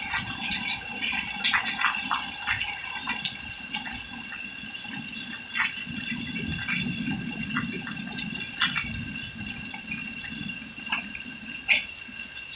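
Hail falling in a storm: scattered sharp ticks of hailstones striking at irregular intervals over a steady rush of running and splashing water.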